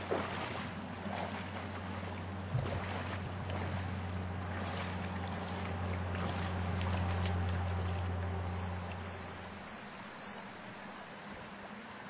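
A steady low hum over the rush of river water and wind on the microphone; the hum stops about ten seconds in, right after four short high beeps.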